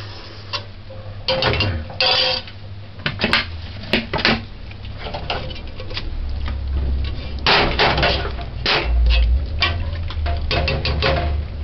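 Metal ladle clinking and scraping against the inside of a metal pressure-cooker pot while the stew is stirred, in clusters of rapid knocks and scrapes.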